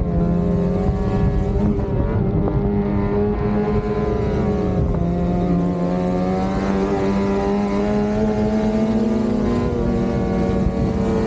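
Lynx Shredder RE 850 Turbo snowmobile's turbocharged two-stroke engine running under way, breathing through an aftermarket Jaws trail muffler, holding a fairly steady speed with slight dips and rises in pitch.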